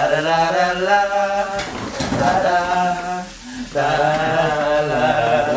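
A man's voice singing wordless "la la" syllables in about three long held notes, with short breaks between them.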